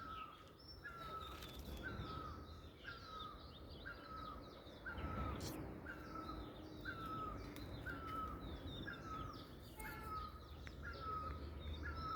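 A bird repeating a short falling call over and over at a steady pace, about three calls every two seconds, with other birds chirping higher up. A low rumble of background noise runs underneath.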